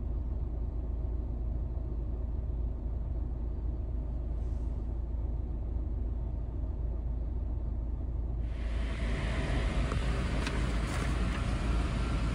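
Airbus A380 jet engines as a steady low rumble while it taxis. About eight seconds in, a louder, hissing jet roar comes in abruptly.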